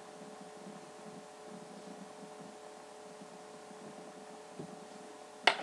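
Steady low hum under the faint scratching of a pen writing on paper. Just before the end comes a sudden loud rustle of the paper sheet being handled.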